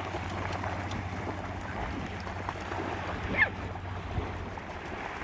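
Small waves lapping at the shore and dogs splashing as they wade through the shallows, over a steady low hum. One short high squeak falls in pitch about three and a half seconds in.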